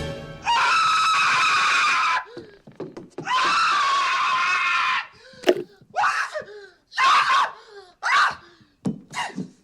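A man screaming: two long, high screams of about two seconds each, then a string of shorter cries and yelps.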